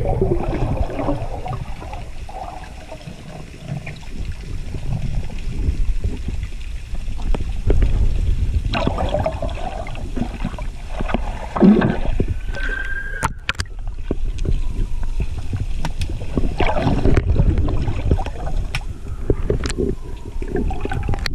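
Underwater sound of a snorkeler swimming: water sloshing and gurgling, swelling and easing, with scattered clicks and a few faint falling tones.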